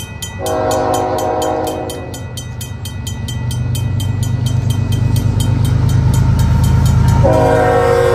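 A CN GE ES44AC locomotive's Nathan K5HL horn sounds two blasts: one of about a second and a half near the start, and another starting about a second before the end. Throughout, a Griswold/RACO mechanical crossing bell rings at about five strokes a second. Under both, the diesel locomotive's rumble grows louder as it nears.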